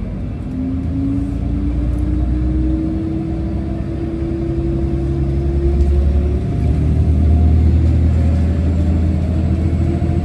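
Train pulling away from a station, heard from inside the carriage: low running rumble under a motor whine that climbs slowly in pitch, with a second, higher whine rising in the latter half as it gathers speed.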